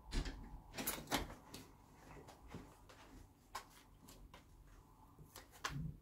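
Faint, scattered clicks, taps and rustles of plastic MathLink cubes and a paper sticker sheet being handled and a sticker peeled off, with a few sharper taps about a second in and near the end.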